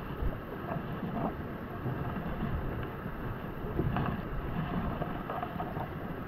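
Wind rumbling on a GoPro Hero 9's microphone out on a kayak, with water moving around the boat and a few faint light knocks.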